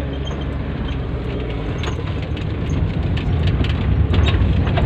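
Car engine and road noise heard from inside the cabin while driving: a steady low rumble that gets somewhat louder about three seconds in.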